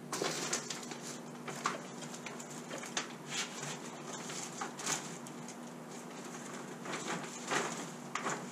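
Irregular light clicks, knocks and plastic rustling as metal clamps are set and tightened on a glued-up wooden tiller laminate lying on plastic sheeting, over a faint steady hum.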